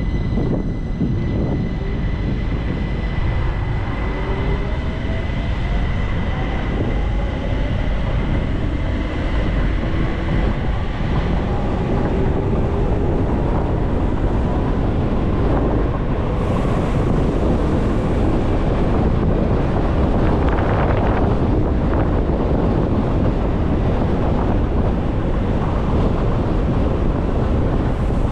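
ÖBB class 4024 Talent electric multiple unit accelerating away from a station stop: the traction motors give a whine that rises in pitch over the first dozen seconds. Under it is a steady rumble of the train running, with wind noise that builds as it picks up speed.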